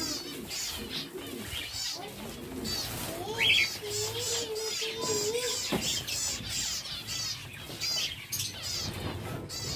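Zebra finches calling: many short, high chirps in quick succession, with one louder chirp about three and a half seconds in and a lower wavering tone underneath between about four and five and a half seconds in.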